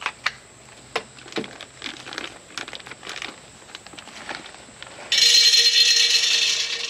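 A plastic bag of wood fuel pellets crinkling and crackling as it is handled and opened. About five seconds in, pellets start pouring from the bag into a stainless steel Solo Stove with a sudden loud, steady rattle.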